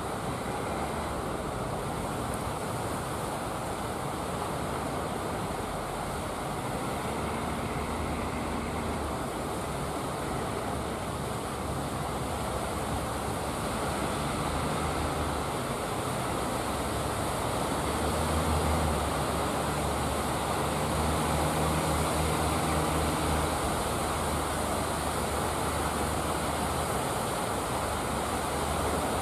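Steady rush of surf and wind, with the low drone of fishing boats' engines coming and going and strongest about two-thirds of the way through.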